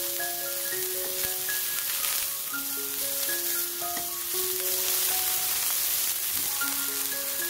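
King oyster mushroom slices sizzling as they fry in olive oil in a frying pan. Background music with a slow melody of held notes plays over it.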